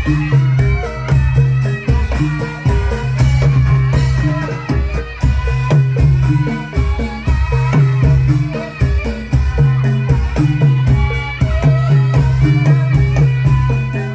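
Live Javanese folk music: drums beating a steady, insistent rhythm under ringing tuned percussion, with a rattling shaker-like sound in the mix.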